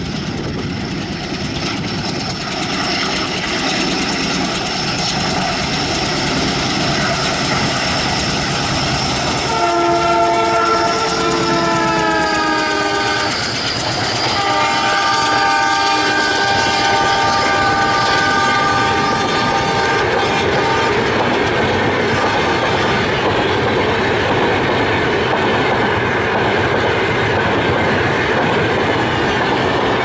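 WDM3A diesel locomotive chugging at speed as it approaches, then sounding its multi-tone horn twice: a first blast of about four seconds whose pitch drops near its end as the locomotive passes, and a second, steady blast of about six seconds. The express's passenger coaches then rush past, their wheels clattering on the rails.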